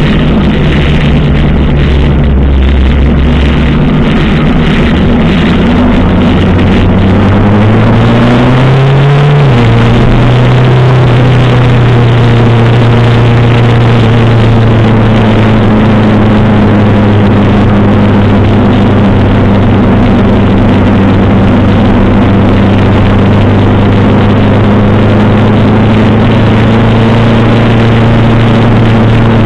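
1985 Suzuki GS 700 ES motorcycle's air-cooled inline-four engine running at a steady cruise, heard from on board over wind and road noise. About eight seconds in, the engine note rises for a second and a half, then drops with an upshift and holds steady again.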